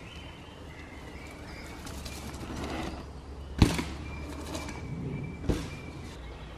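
Mountain bike riding over woodland dirt jumps, with two sharp thuds: the louder one about three and a half seconds in and another about two seconds later. Birds sing in the trees throughout.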